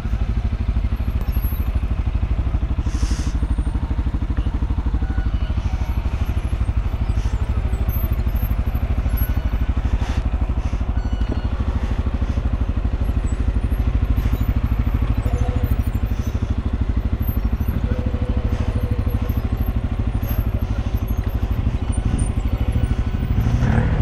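Off-road vehicle engine running steadily at an even pitch, rising in level right at the end.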